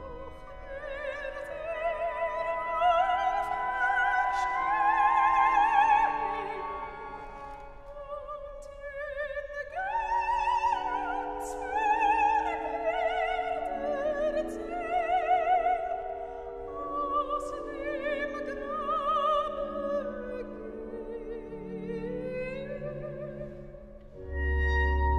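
Soprano singing sustained phrases with wide vibrato over soft held accompaniment, in a reverberant church. About 24 s in, the pipe organ enters much louder with deep, steady pedal notes.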